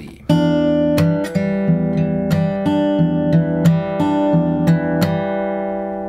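Martin D-42 acoustic guitar fingerpicked slowly in an E minor 7 pattern: thumb bass notes and plucked treble notes ringing together, with percussive slaps on the strings between them. The playing begins about a third of a second in.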